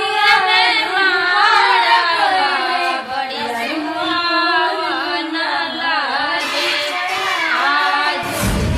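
Bhojpuri film-style song: a high voice sings a wavering, ornamented melody over instrumental backing. A deep booming sound effect hits near the end.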